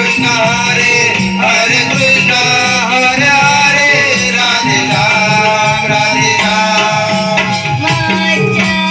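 Live Konkani Naman folk music: a child sings a Krishna-leela song through a microphone and loudspeakers, with a steady rhythmic drum accompaniment.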